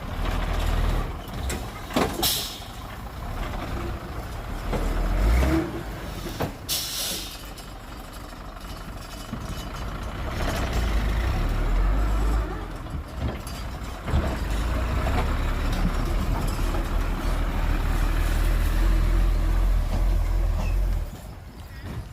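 Heavy diesel dump truck engine running with a deep steady rumble that grows louder in the second half, with two short sharp air hisses, about two seconds in and again near seven seconds, and a few knocks.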